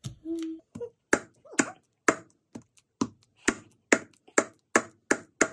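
Wire potato masher mashing banana in a plastic mixing bowl, the masher knocking against the bowl's bottom about twice a second in a steady rhythm.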